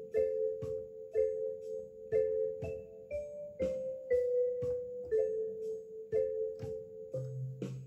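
Background music: a light instrumental tune, its notes struck at a steady pace of about two a second.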